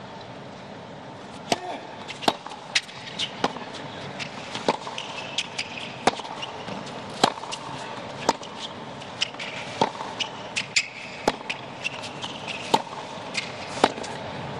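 Tennis rally on a hard court: sharp, irregularly spaced pops of the ball struck by rackets and bouncing on the court, over a steady low stadium background.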